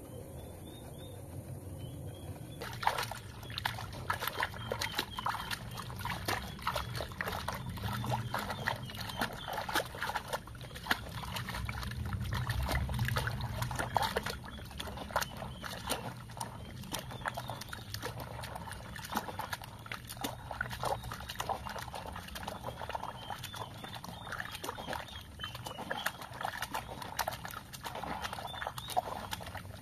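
Clothes hand-washed in a plastic basin of soapy water, with rapid irregular splashing and sloshing as the wet fabric is scrubbed. It starts suddenly about three seconds in, after a moment of quiet birdsong.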